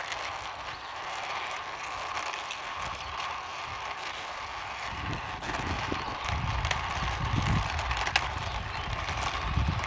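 Small plastic toy racing car pushed along the ground by hand, its wheels rolling and rattling with many small clicks. A low rumble joins about halfway through.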